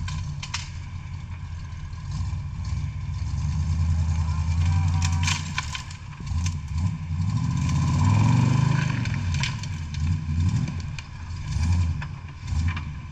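Jeep engine running and revving in surges, swelling twice, with scattered knocks and clatter.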